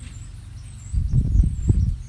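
A low, uneven rumble that grows louder about a second in, with small birds chirping faintly and high above it.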